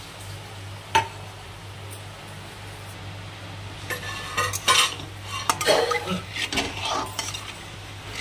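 Metal spatula stirring sugar into hot water in an aluminium kadai to dissolve it for syrup. There is a single sharp knock about a second in, then a run of scrapes and clinks against the pan from about four seconds in, over a steady low hum.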